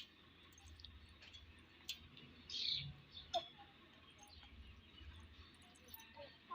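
A single short, high bird chirp about two and a half seconds in, among a few faint clicks; no rooster crow.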